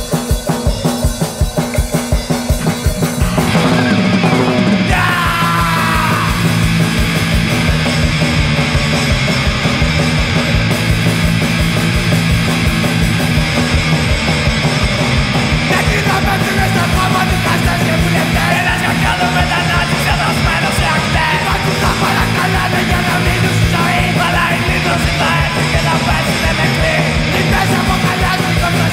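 Loud punk rock song from a recording. It opens on a run of steady, evenly spaced beats, then about three and a half seconds in the full band comes in with distorted guitars and fast drums, and keeps going at full volume.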